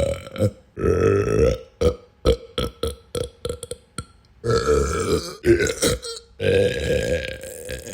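A person belching over and over: several long drawn-out burps, starting a little under a second in, at about four and a half seconds and at about six and a half seconds, with short quick belches between them.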